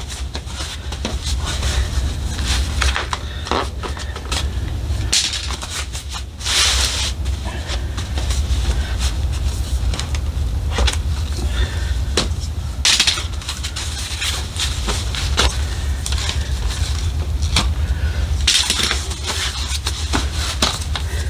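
Scattered clicks, knocks and rattles of a folding camping cot being taken apart, its poles unclipped and pulled out of the plastic leg fittings, with the bed fabric rustling. A steady low rumble runs underneath.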